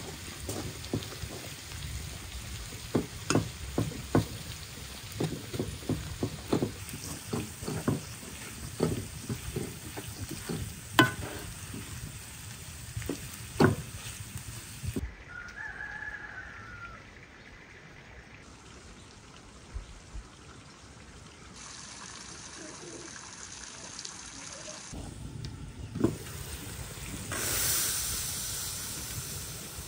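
Shredded cabbage, carrot and cauliflower frying in a granite-coated pan, sizzling while a wooden spatula stirs and scrapes them, with frequent knocks of the spatula against the pan in the first half. It goes quieter midway, and a louder hiss swells near the end.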